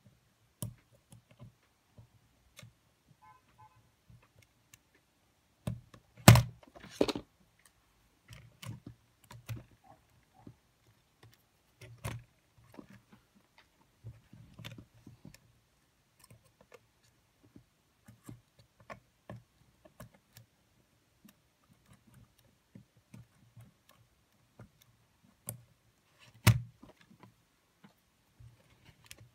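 Scattered small clicks and taps of metal tweezers and tiny plastic gears and parts being handled while a Sony EX999 cassette player's gear mechanism is taken apart for cleaning, with a sharper knock about six seconds in and another near the end.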